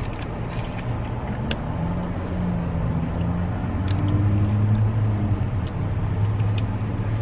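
Car cabin noise: a steady low hum that strengthens about halfway through, with a few soft clicks.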